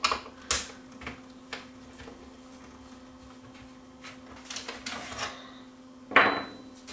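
Screwdriver and the plastic VCR cabinet being handled on a workbench. Four sharp clicks come about half a second apart at the start, then faint scraping a little past halfway, and a louder knock and rattle near the end, over a faint steady hum.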